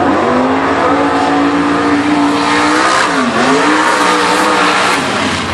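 Unlimited-class mud bog buggy's engine running hard at high revs as it drives through the mud pit. The revs dip sharply about three seconds in, then climb again.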